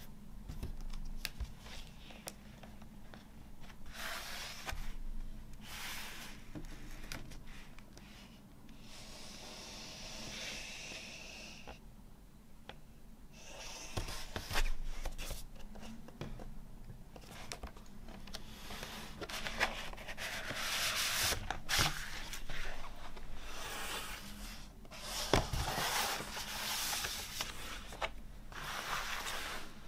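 Cardboard vinyl LP jacket and paper inner sleeve being handled, rubbing and sliding against each other and across a wooden tabletop in a series of scraping swishes, with a few sharp taps.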